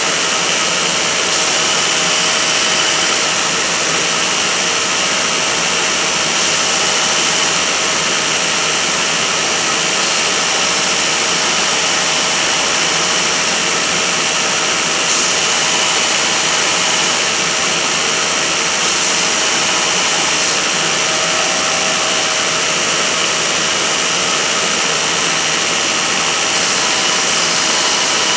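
Grinder running steadily with a small metal hammer head held against it, a steady grinding hiss over a constant motor tone, as the face of the miniature hammer is ground down.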